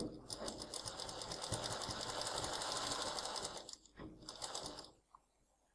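Sewing machine stitching a zip onto fabric. It makes one steady run of about three and a half seconds, pauses briefly, then makes a shorter run of about a second before stopping.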